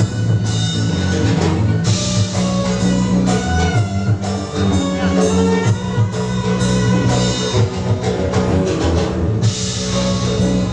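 Live music accompanying a traditional Sundanese dance-drama: plucked string instruments and drums playing continuously.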